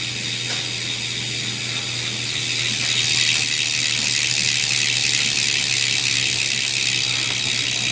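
BMX rear hub freewheeling, its pawls ratcheting in a fast continuous buzz as the back wheel spins. It is pretty loud, and grows louder about two and a half seconds in.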